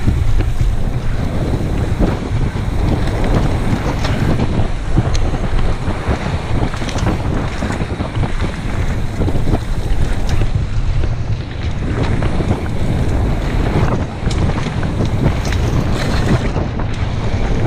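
Heavy wind buffeting a camera microphone on a fast mountain bike descent, with the tyres rolling over a dirt trail and the bike knocking and rattling over bumps throughout.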